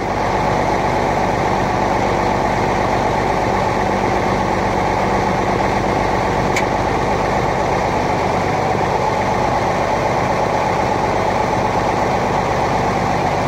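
The Deuce's multifuel diesel engine idling steadily, heard from inside the cab.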